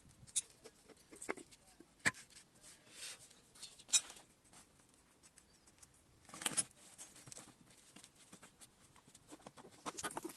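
Scattered clicks, knocks and short scrapes of hand tools and metal parts being handled while a single-cylinder KamAZ air compressor is taken apart; the compressor is not running.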